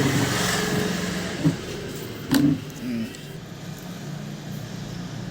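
A motor vehicle's engine running, swelling in the first second or so and then easing, over a steady low hum. Two sharp clicks come about a second and a half and two and a quarter seconds in.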